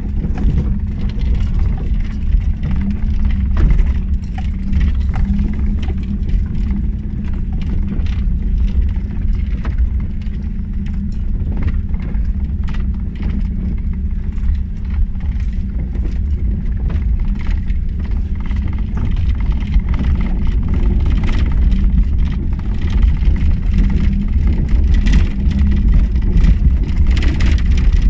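Daewoo Tico's small three-cylinder engine running as the car drives over a rutted dirt track, heard from inside the cabin: a steady low drone with many clicks and rattles from the jolting body and loose items.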